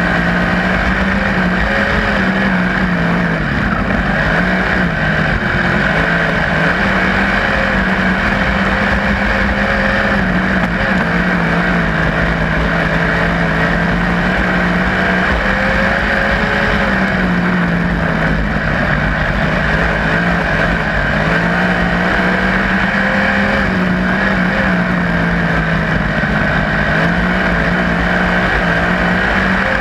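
A 360 winged sprint car's 360-cubic-inch V8 running hard on board, its note dipping and climbing back several times as the throttle comes off and back on through the turns.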